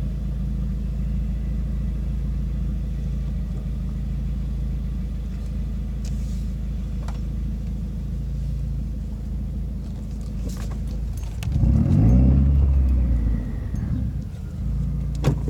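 Exhaust and engine of a 2017 Subaru WRX's turbocharged flat-four, fitted with a Grimmspeed catted J-pipe and Carven cat-back exhaust, heard from inside the cabin with a low steady drone while driving. About eleven and a half seconds in, it gets louder and rises in pitch as the car accelerates for a couple of seconds, then settles back. A sharp click comes near the end.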